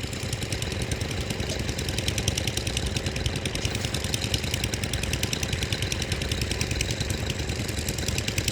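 An engine running steadily with a rapid, even knocking beat.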